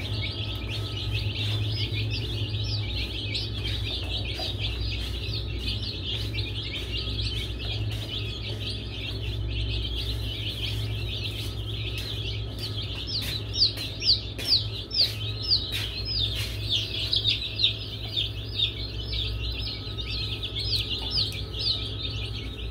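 A group of baby chicks peeping continuously in high, falling peeps, with a run of louder single peeps partway through. A steady low hum runs underneath.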